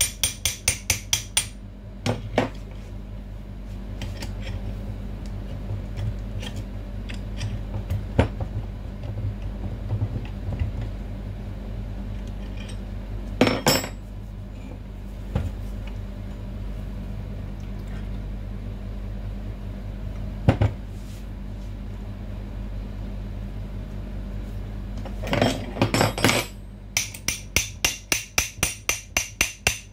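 A hammer tapping on the steel housing of a barber chair's hydraulic lift pump, in quick runs of about four taps a second at the start and near the end, with single knocks between. A steady low hum runs underneath.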